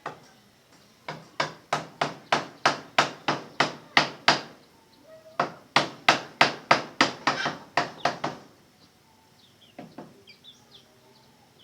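Repeated blows of a hand tool, struck at about three a second in two runs of about ten strokes with a short pause between, then a single knock. Faint bird chirps near the end.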